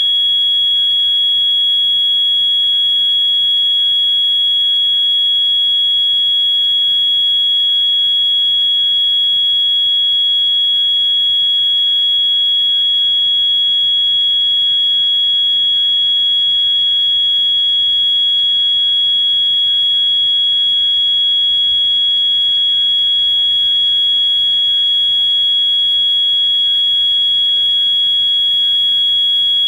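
Edwards EST 692-7A-HSR fire alarm sounding one loud, steady, piercing high-pitched tone without a break, with other fire alarms faintly behind it.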